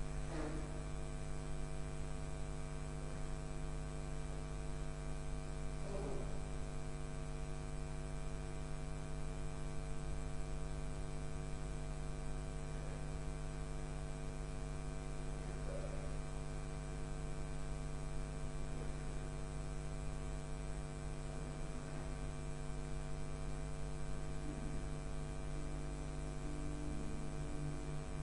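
Steady electrical mains hum with many overtones, running under a hushed church. A few faint notes sound near the end.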